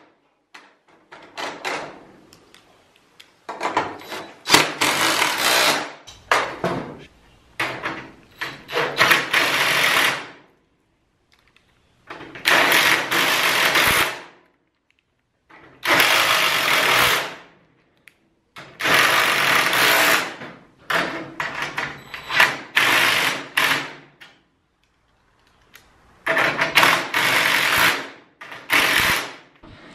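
Cordless impact driver with a 7/16 socket running hex-head screws into a steel garage door section as hinges and brackets are fastened on. It comes in about ten short rattling runs of one to two seconds each, with brief pauses as each screw is set.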